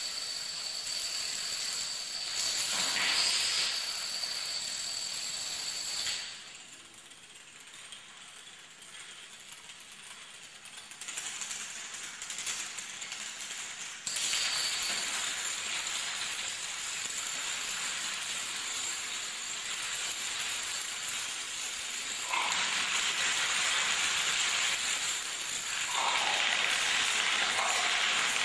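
Chains of dominoes toppling on a hardwood floor: a continuous rapid clatter of small clicks. It drops quieter about six seconds in, returns abruptly at about fourteen seconds and gets louder again past twenty-two seconds.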